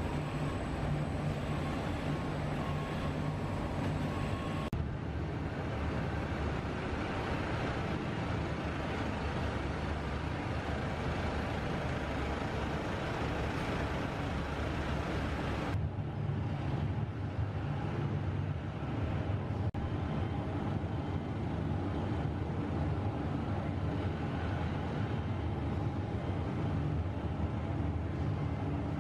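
Steady industrial noise from an aluminium melting furnace: gas burners and plant machinery running as a constant low rumble with a hiss above it. The sound shifts abruptly about five seconds in and again about sixteen seconds in.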